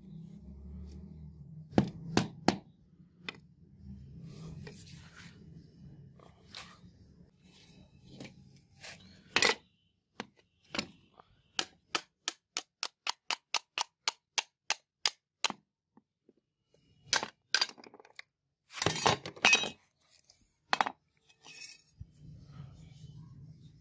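Metal clinks and taps from a rusty billhook being taken apart by hand: a screwdriver worked against the steel ferrule on the wooden handle gives a run of evenly spaced sharp clicks, about four a second, and a short scraping rasp follows about three-quarters of the way through.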